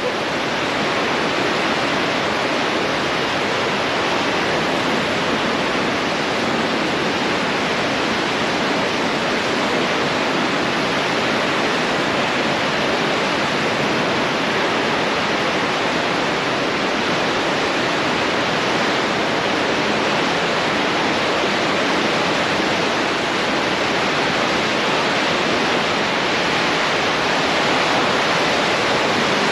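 The Androscoggin River rushing below Great Falls, its high, muddy water churning around a concrete bridge pier, a loud steady roar of water.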